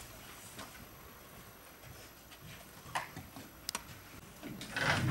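Quiet room tone with a few sharp light clicks about three to four seconds in and a brief louder noise near the end.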